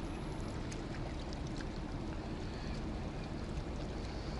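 A boat's engine running steadily as a low, even hum under water noise.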